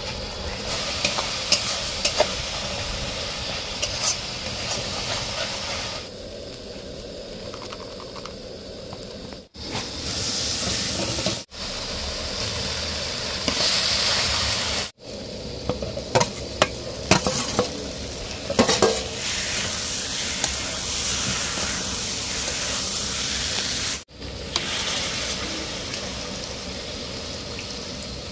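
Food sizzling as it fries in a pan while being stirred, with sharp clicks of the utensil against the pan. The sound breaks off abruptly several times between segments.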